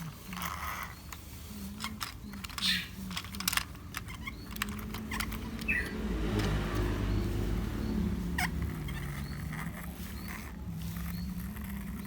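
Plastic toy truck-robot being handled, with a series of small clicks and knocks of plastic parts. A steady low hum comes in about six seconds in.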